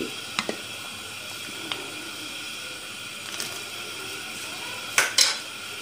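A wide pot of chicken vegetable soup at a boil, giving a steady bubbling hiss. A few faint clicks sound over it, then two sharper knocks about five seconds in.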